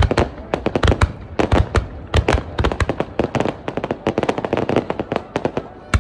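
Fireworks display in a dense barrage: shells bursting in rapid, overlapping bangs and crackles, several a second, with no let-up.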